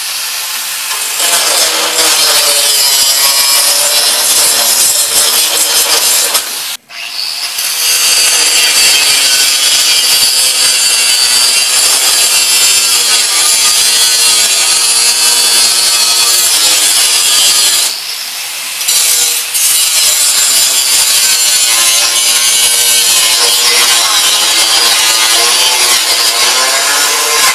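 Angle grinder cutting into the rusted steel of a riding-mower deck, throwing sparks; the motor's whine wavers in pitch as the wheel bites and eases. It cuts out briefly about seven seconds in and dips again around eighteen seconds.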